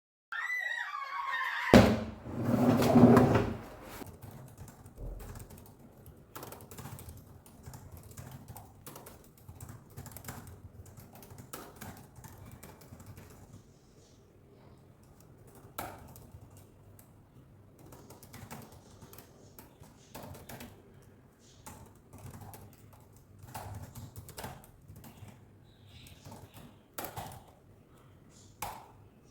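Scattered light clicks, taps and knocks of things being handled and set down in a small room. In the first few seconds there is a short high cry falling in pitch, then a louder burst of noise lasting about a second and a half.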